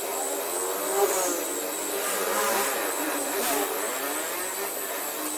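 A small electric motor running steadily with a high, steady whine, as from a detailing power tool.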